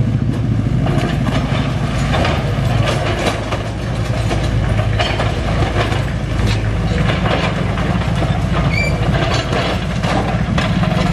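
SANY mini excavator's diesel engine running under load while its bucket breaks into a masonry wall, with repeated crunching and clattering of falling rubble.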